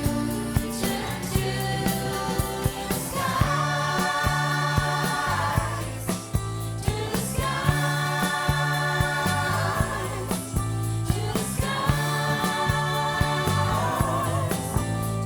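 Background music: a song with sung vocals over a steady beat and bass line, in phrases of about four seconds.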